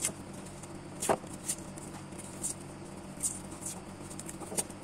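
Faint rustling and scattered small clicks of hands wrapping a wiring harness with tape, the sharpest click about a second in, over a steady low hum.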